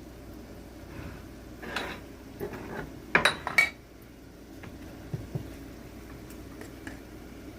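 A metal spoon clinking against a cup or bowl while cornstarch is mixed into water for a slurry, in short bursts about two seconds in and again between three and four seconds in, the loudest near three seconds. A couple of soft low knocks follow about five seconds in.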